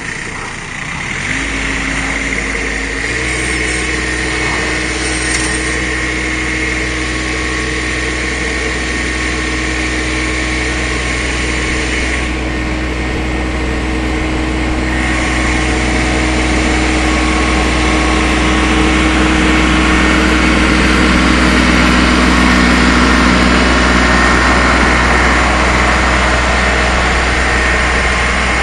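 An 18 hp compact tractor's engine comes up about a second in, steps up in speed about three seconds in, then runs steadily under load while the tractor hauls a stump-pulling rope rig.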